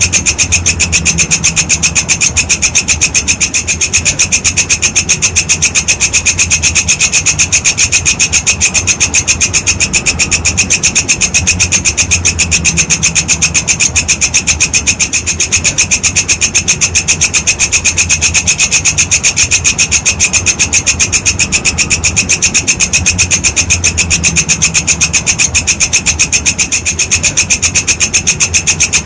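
A walang kecek grasshopper stridulating in a fast, even, unbroken train of rasping pulses, over a low hum.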